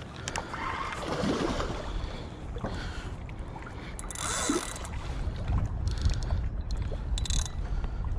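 Wind buffeting the microphone as a steady low rumble, with two louder rushing bursts about a second in and about four and a half seconds in.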